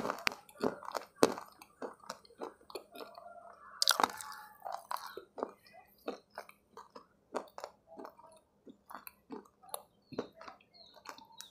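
A person chewing a hard, crunchy bar: irregular crunches and mouth clicks, with one louder crunch about four seconds in.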